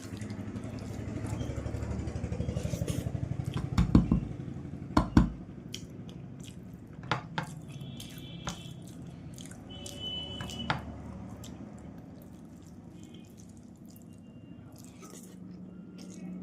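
Eating by hand from a plate: scraping and handling of rice and curry, with two sharp knocks about four and five seconds in, scattered clicks, and a couple of brief ringing clinks of a metal plate.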